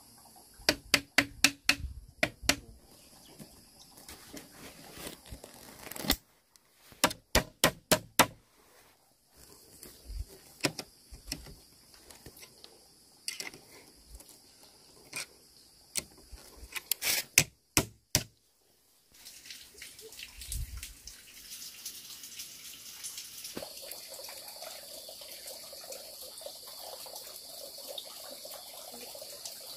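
Sharp knocks from hand-tool work, in quick runs of five or six strikes and then single strikes, stopping about 18 seconds in. After that comes a steady high buzz of insects.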